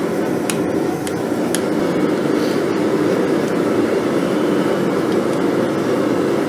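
Steady roar of a running blacksmith's forge, with a couple of light metallic clicks of tongs and hot steel on the anvil about half a second and a second and a half in.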